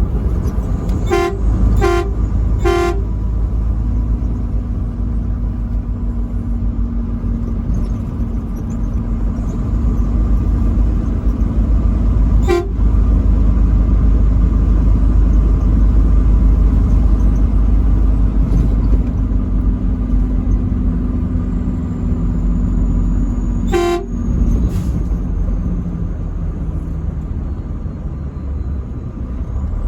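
Truck horn giving three short toots in quick succession about a second in, then a single short toot about twelve seconds in and another near 24 seconds, over the steady low rumble of the truck driving.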